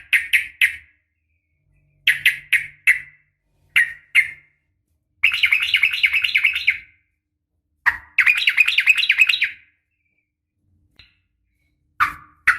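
Yellow-vented bulbul (trucukan) calling: groups of three or four short bubbly chirps, then two fast chattering trills of about a second and a half each, with pauses between. These are the agitated fighting calls of a young bird.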